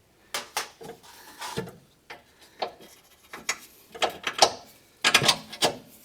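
Hand ratchet clicking in short, uneven strokes as a bolt is run in on a rear shock mount.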